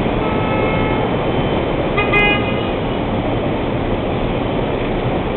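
Street traffic at a busy intersection: steady engine and road noise, with car horns honking, a fainter horn in the first second or so and a louder, short one about two seconds in.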